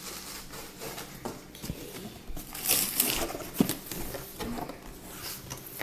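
Rustling and light clicks and knocks of a dinnerware box and its packing being handled and opened, with a longer rustle about two and a half seconds in.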